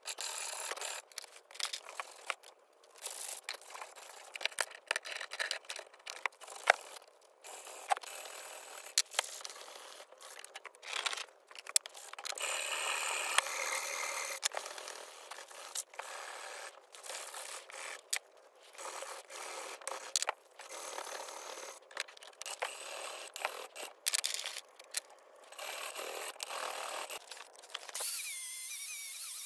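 Hand file scraping the rusty steel of a hatchet head clamped in a bench vise, in irregular strokes with short pauses between them.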